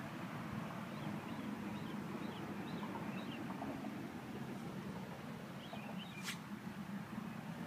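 A small pet sneezing: a series of faint, short, high-pitched sneezes in quick succession about a second in, and another cluster near the end with a sharp click among them, over a steady low background hum.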